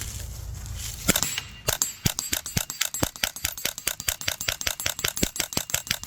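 Suppressed Bergara BXR semi-automatic .22 rifle fired in a very fast string. The quiet shots mix with the metallic pings of hits on a steel gong, a quick run of sharp cracks and clinks starting about a second in.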